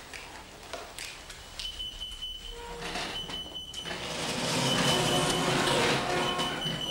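A high electronic school bell beeping in short repeated tones, roughly one every second and a half. From about four seconds in, the noise of a class getting up and moving about, with mixed chatter, swells and becomes the loudest sound.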